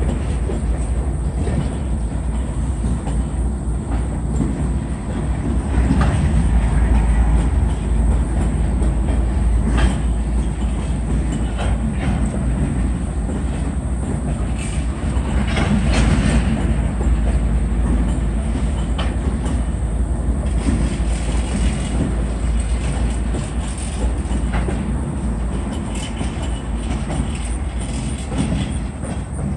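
A consist of BNSF diesel-electric locomotives rolling slowly past, a deep steady rumble with wheels clicking over rail joints now and then.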